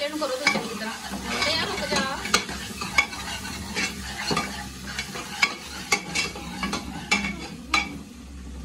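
A metal ladle stirs and scrapes chicken curry in an open aluminium pressure cooker, clinking sharply against the pot every second or so while the curry sizzles.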